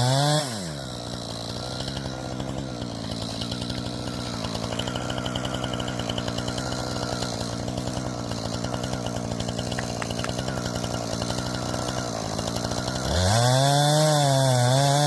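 Chainsaw engine at high revs that drops to a lower, pulsing run about half a second in, then revs up again to a loud, wavering pitch near the end.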